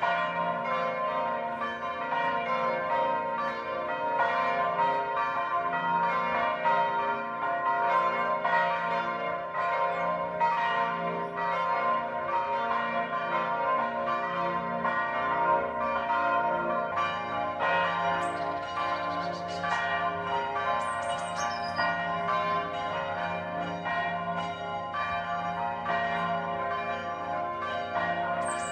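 Church bells ringing continuously, many overlapping strikes with their tones hanging on between them.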